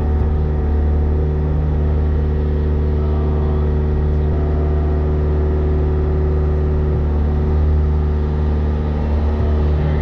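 Skid steer engine running at a steady speed, heard from inside the operator's cab.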